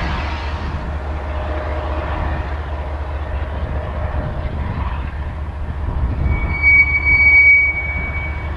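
Freight train rolling past with a steady low rumble; about six seconds in, a steel wheel squeals against the rail with a high steady tone for about two seconds.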